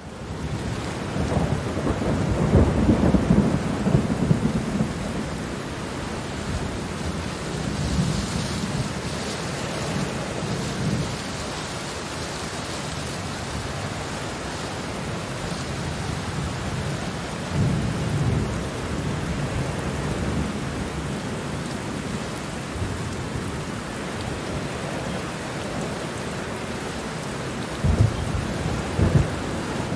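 Steady rain with thunder rumbling several times. The thunder is loudest a few seconds in and returns about halfway and near the end. The sound swells in from a brief silence at the very start.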